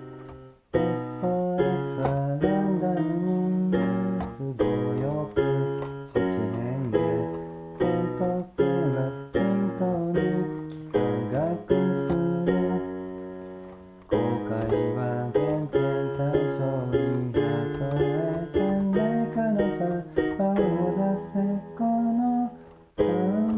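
Portable electronic keyboard playing the melody and chords of a J-rock pop song in quick runs of struck notes that ring and fade, with guitar and a singing voice also in the mix. There is a brief gap at the start and again near the end.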